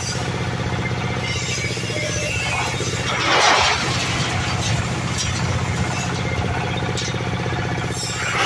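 Oil palm loose-fruit thresher running, driven by a small stationary engine with a steady drone, while stripped palm fruits clatter through the screen and onto a tarp. A louder burst of clattering comes about three and a half seconds in, and another near the end.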